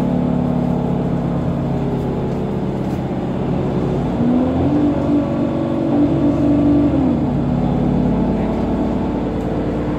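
Solaris Urbino 10 city bus's Cummins ISB6.7 diesel engine running, heard from inside the passenger cabin. About four seconds in, the engine note rises and holds higher for about three seconds, then drops back to a steady run.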